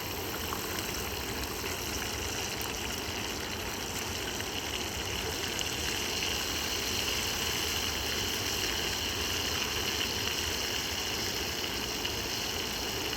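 Steady rushing of a wild river flowing, an even noise that holds level throughout.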